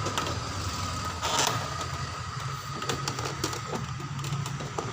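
Light clicks and a brief scrape about a second and a half in from handling the plastic housing of an HP OfficeJet Pro 3610 inkjet printer, over a steady low hum.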